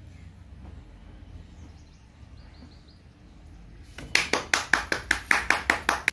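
Steady low background noise, then about four seconds in, hands clapping quickly and evenly, about six claps a second.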